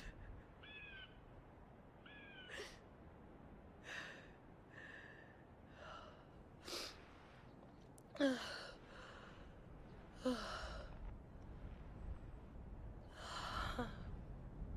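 Faint, scattered short vocal sounds: two small rising chirps in the first few seconds, then several breathy sighs, the loudest a little past the middle.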